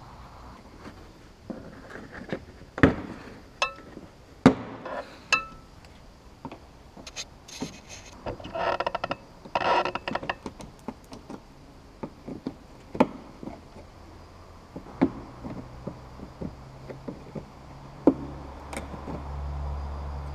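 Screwdriver working the plastic clips of a car's wheel-arch liner: irregular clicks and knocks of metal on plastic, a few with a short metallic ring. A rasping, rattling stretch comes about eight to ten seconds in. A low steady hum comes in after about fifteen seconds.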